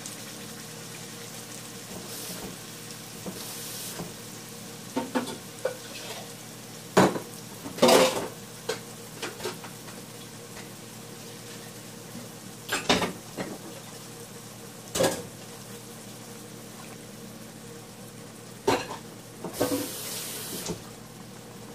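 Ground onion-and-tomato paste frying in hot oil over chickpeas in a non-stick pan: a steady sizzle with sharp pops and spits every few seconds as the paste heats through and begins to bubble.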